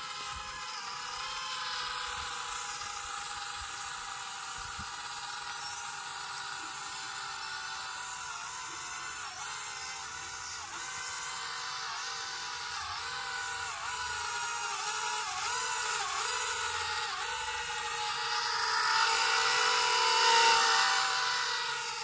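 Small propeller motors of a remote-control flying toy motorbike whining steadily in flight. The pitch dips briefly again and again as the throttle changes, and the sound grows louder near the end.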